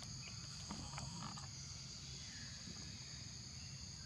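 Steady high-pitched insect chorus, a continuous drone in two high pitches, with a few faint clicks in the first second and a half.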